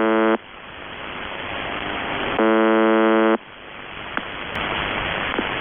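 The UVB-76 shortwave signal, 'The Buzzer', received over the air. A harsh, steady buzz tone stops shortly after the start and gives way to radio static hiss. A second buzz of about a second comes in about two and a half seconds in, and then the static returns.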